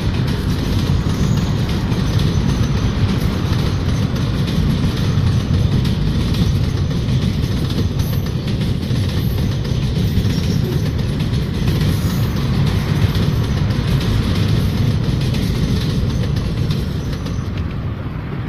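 Container wagons of a loaded ore freight train rolling past on the rails: a steady low rolling noise that fades over the last couple of seconds as the end of the train goes by.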